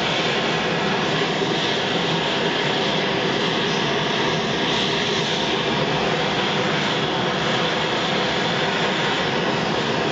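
Sievert propane torch burning steadily, a continuous even rushing noise, while its flame heats the copper boiler's staybolt heads for silver soldering.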